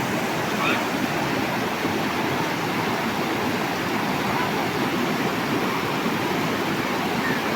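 Steady rush of river water flowing, like a stream or small waterfall.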